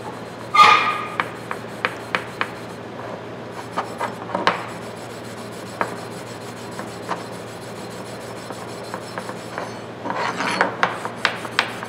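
Pad of 0000 steel wool scrubbed back and forth over a blackened steel pliers handle, burnishing the dried finish. A steady scratchy rubbing with scattered light ticks, heavier scrubbing about half a second in and again near the end.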